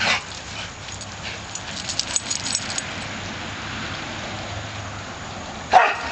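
Two dogs at play, each giving a short bark, one at the start and one near the end, with a run of light clicks in between.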